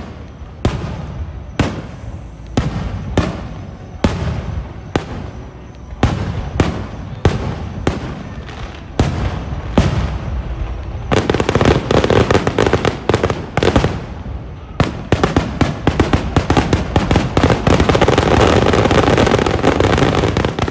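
Fireworks display: aerial shells bursting with sharp bangs about once a second. About halfway through, this gives way to a dense barrage of rapid bangs and crackling, loudest near the end.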